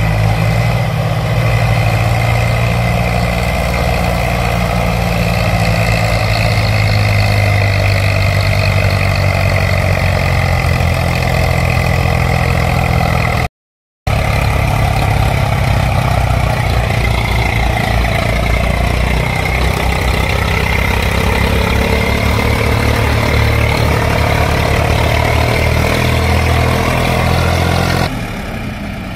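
Steady running of a tractor-type engine at an even pace. It breaks off to silence for a moment about halfway through, then carries on, and turns quieter just before the end.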